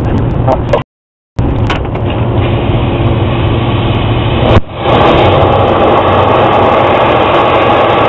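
Steady, loud machinery running with a low hum. It cuts to dead silence for about half a second about a second in, and dips briefly near the middle.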